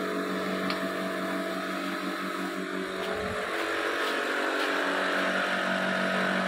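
Two electric water pumps of a home reverse-osmosis water system running together, a steady motor hum over a hiss, getting a little louder.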